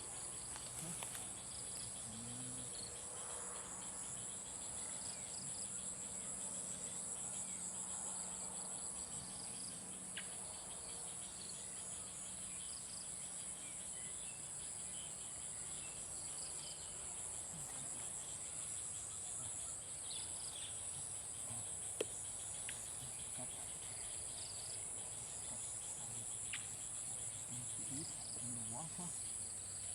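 Insects chirring in a steady, high-pitched chorus, with one sharp click about two-thirds of the way through.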